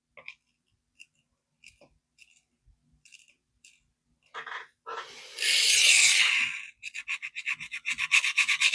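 Steel knife edge being ground on a 400-grit vitrified diamond sharpening stone: a few faint taps at first, then one long scraping stroke about five seconds in, followed by a quick run of short strokes, several a second.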